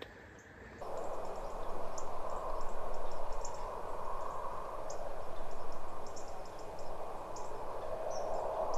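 Steady outdoor background noise starting about a second in, with faint, brief high chirps of small birds scattered through it.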